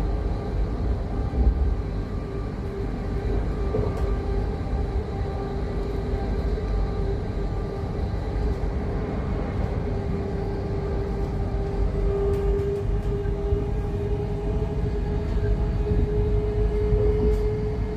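Cabin noise inside a Class 700 electric multiple unit accelerating through about 65 to 70 mph. A steady low rumble of wheels on track runs under a humming tone that rises slowly in pitch as the train gathers speed.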